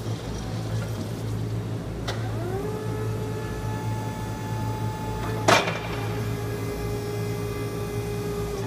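Raymond R35-C35TT electric forklift's hydraulic pump motor: a click about two seconds in, then a whine that rises in pitch and holds steady as the mast lifts the clamp attachment. A loud clunk about halfway through, over a steady low hum.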